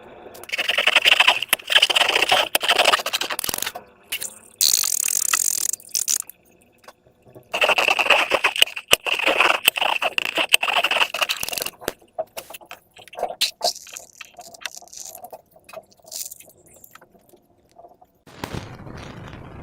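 Slime being squished and stretched by hand, crackling and popping in two long bursts with a shorter hiss between them. Scattered small clicks follow, and a steady hiss begins near the end.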